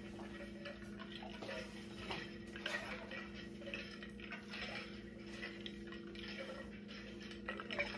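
Light clicks and taps of kitchen utensils being handled, scattered irregularly over a steady low hum.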